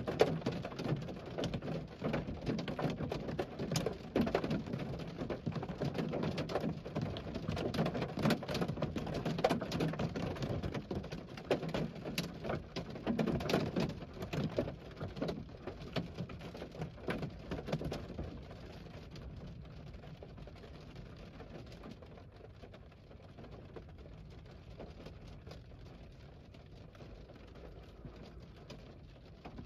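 Heavy rain of very large raindrops, not hail, pattering hard with dense, rapid drop impacts. About two-thirds of the way through the rain eases, growing quieter and sparser.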